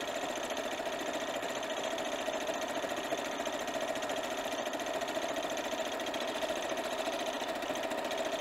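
Sewing machine running continuously at an even speed, stitching a seam through the fabric.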